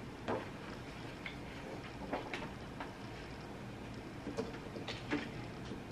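A few faint, irregular clicks and taps over a steady low room hum, from handling things at a computer desk.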